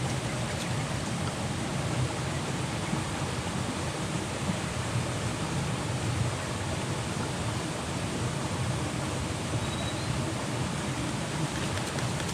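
Steady rushing noise of running water, even and unbroken, with no distinct events.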